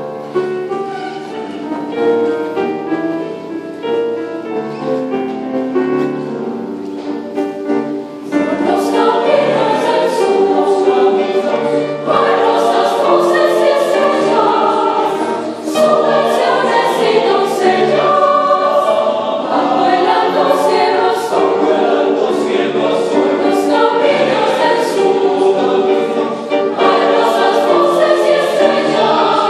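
Mixed choir of women's and men's voices singing a folk-song arrangement. It begins soft with held chords and grows louder and fuller about eight seconds in.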